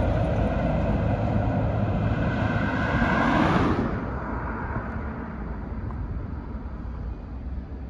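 Heavy truck driving past close by, its engine loud with a slightly rising pitch. About four seconds in it drops off sharply, leaving fainter engine noise.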